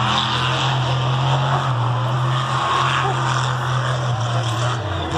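Monster truck engine running at a steady drone, its pitch dipping and rising slightly a couple of times as the throttle changes, with a wide noisy rush over it.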